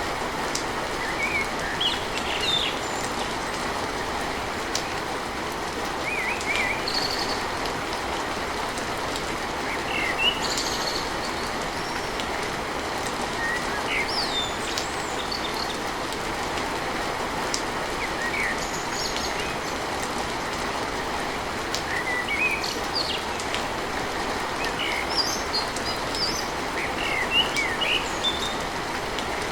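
Steady rain falling on a tin roof, with birds chirping in short calls scattered throughout.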